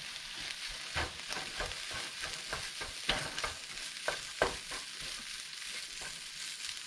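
Freshly cooked hot rice sizzling in a hot pan of oil with egg and peas while it is stirred, with a steady frying hiss and irregular scrapes and taps of the utensil against the pan.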